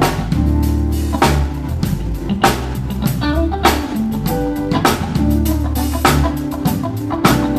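Live band playing during a sound check: electric guitar over a drum kit, with a heavy drum stroke landing about every second and a quarter in a steady beat.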